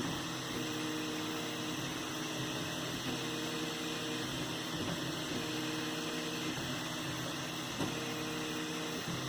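3D printer at work: its stepper motors sing short steady tones that stop and change pitch every second or so as the print head moves, over the steady hiss of its fans.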